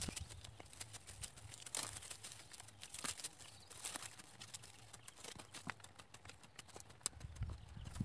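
Garden hoe chopping and scraping into soil and straw mulch: faint, quick, irregular knocks and scrapes, several a second.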